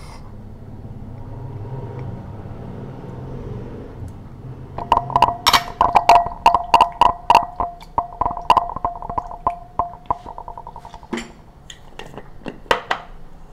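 Oyster sauce being poured quietly into a glass mixing bowl. About five seconds in, a utensil starts stirring the marinade, knocking rapidly against the glass so that the bowl rings with a steady tone. The knocking thins out after about eleven seconds, with a few last taps near the end.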